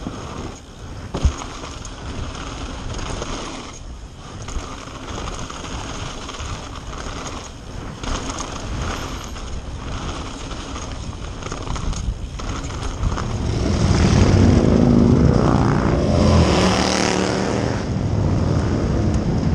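Mountain bike rolling fast down a gravel trail: tyre roar, wind on the mic and frequent rattling knocks from the bike over rough ground. About two-thirds of the way through it gets louder as motorcycle engines run close by on a paved street.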